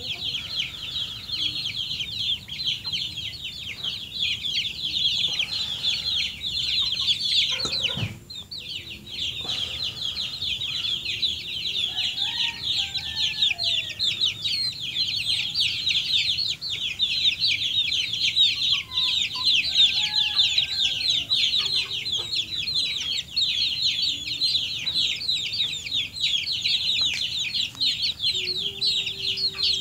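A flock of backyard chickens clucking and calling, with louder calls about twelve seconds in and again about twenty seconds in, over a constant, dense high-pitched chorus of peeping. A single brief knock about eight seconds in.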